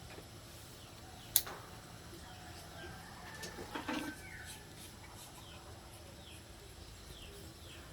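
A single sharp click about a second and a half in, over faint, repeated short bird chirps.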